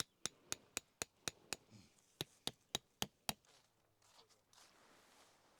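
Sharp, evenly paced knocks, about four a second, pausing briefly after about a second and a half, then five more before stopping; faint rustling follows.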